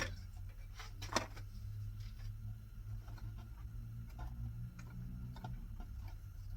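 Light clicks and taps of small metal parts being handled and fitted by hand: a sharp click about a second in, then scattered faint ticks, over a steady low hum.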